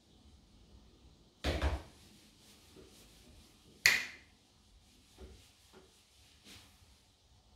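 A few household knocks: a dull thump about one and a half seconds in, then a sharp knock with a brief ring about four seconds in, followed by a few faint taps.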